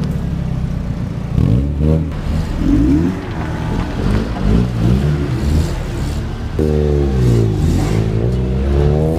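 Cars driving past one after another in a slow convoy, their engines revving up and dropping back as each pulls away. The longest rev rises and falls about two-thirds of the way through.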